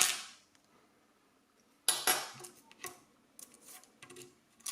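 Small metal lock parts and tools clinking and clacking as a rim lock cylinder is taken apart: a sharp clack at the start, another about two seconds in, then a few lighter clicks.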